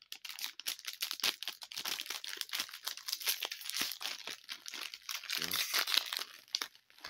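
A Lego minifigure packet being torn open and crinkled by hand, a dense, continuous crackling. A short voice sound comes through about five and a half seconds in.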